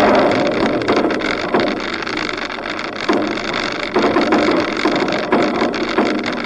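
Wind rushing over the microphone of a camera on the roof rack of a moving 4WD, mixed with the vehicle's running noise, swelling every second or so.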